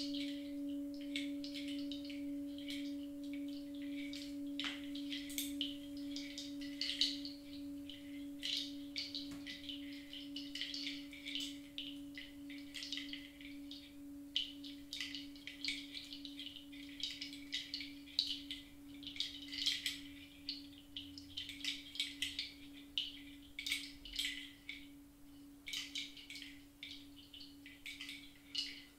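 Singing bowl ringing out in one long, pure tone with a slow wavering pulse, fading gradually. Faint irregular high chirps and clicks run over it.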